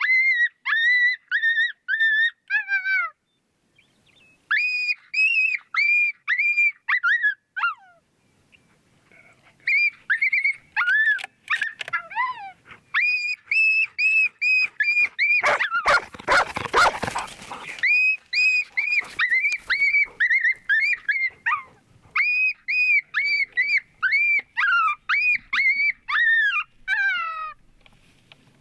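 Canine yipping and whining: rapid runs of short, high, even yips, several runs ending in falling cries, with pauses between them. A burst of rushing noise about halfway through.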